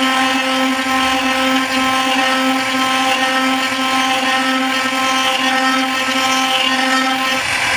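An electric power tool's motor running at a steady speed, a constant hum with no change in pitch.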